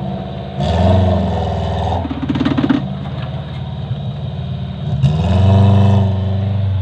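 Off-road 4x4's engine revving in surges as it climbs a steep rocky trail under load: a rise about half a second in and a longer, stronger surge about five seconds in.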